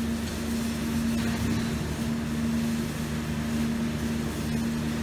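Steady crackling hiss of a stick-welding arc burning a 7018 electrode on the cap pass of steel pipe, over a steady low hum.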